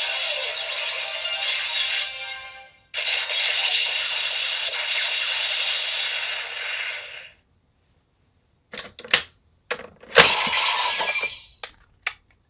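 Kamen Rider Zero-Two DX transformation belt toy playing its electronic finishing-move sound effects and music through its small speaker, cutting off about seven seconds in. After a pause come several sharp plastic clicks and clacks from the toy being handled.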